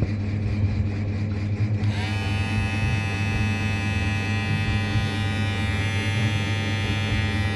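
WMARK NG-222 hair clipper running: a steady low motor hum, joined about two seconds in by a higher, many-toned blade buzz that holds steady. Not very noisy, rather calm.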